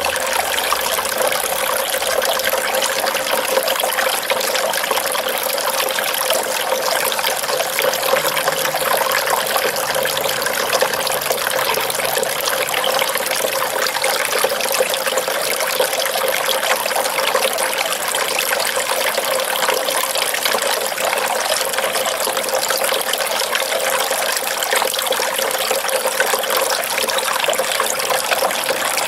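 Small pump-fed garden fountain running: water pouring steadily over the lip of a bowl and splashing into the basin below.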